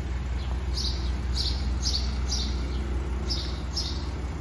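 Small birds chirping over and over in short, quick, downward notes, over a steady low rumble.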